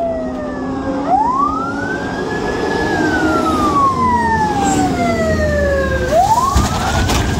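Siren on a GMC TopKick fire-and-rescue truck wailing as the truck drives up. Its pitch sweeps up quickly, holds, then glides slowly down, and starts climbing again near the end. The truck's diesel engine rumbles underneath.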